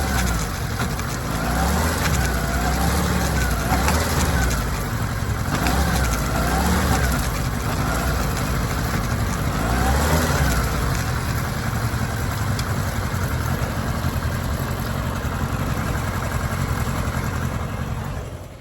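Kawasaki ZR-7S air-cooled inline-four engine running, its pitch rising and falling again and again for the first ten seconds or so, then holding steadier before the sound fades out at the end.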